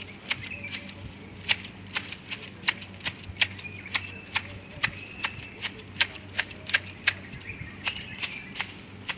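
Hand shears snipping the twigs of a garden tree being trimmed into shape: sharp clicking cuts in a steady run of about three a second.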